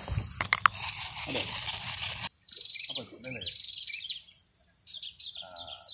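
Insects chirping in rapid high pulses, with bird calls and faint voices. The first two seconds hold a louder rustling noise with a few sharp clicks, which cuts off abruptly.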